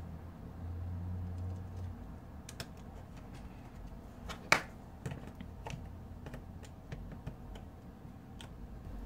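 Scattered light clicks and taps of small smartphone parts and tools being handled, with one sharper click about four and a half seconds in.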